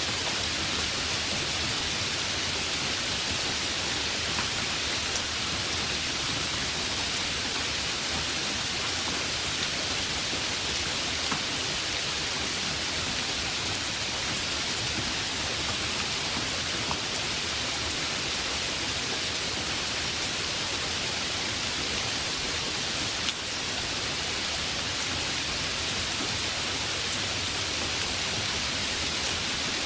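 Heavy rain falling steadily: an even, unbroken hiss with a few faint ticks of single drops.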